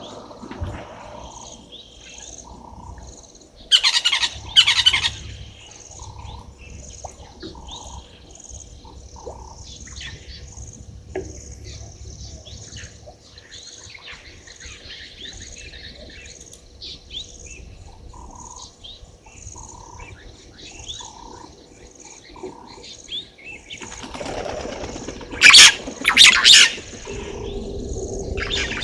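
Wild birds calling in the bush: scattered short chirps and a run of soft notes repeated about once a second, broken twice by a loud pair of calls, once about four seconds in and again near the end.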